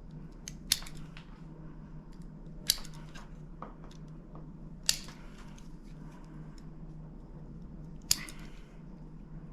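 A cutter working on the insulation of a 2-gauge battery cable to strip off the sheathing: four sharp clicks a couple of seconds apart, with softer handling noise between them.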